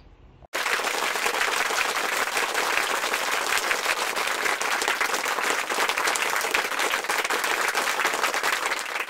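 Applause: a dense, steady patter of many hands clapping that starts abruptly about half a second in.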